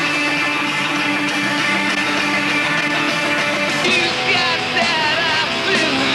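Punk rock music with strummed guitars. About four seconds in, a singing voice comes in over the band.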